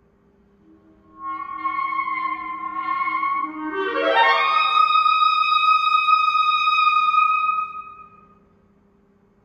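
Solo clarinet, starting about a second in with a short phrase of notes, then sweeping up in a smooth glissando from a low note to a high note. The high note is held for about four seconds and dies away.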